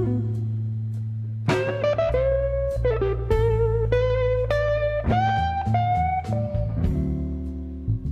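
Background music: a blues electric guitar playing single held notes, some bent and some with vibrato, over a steady bass line, with no singing.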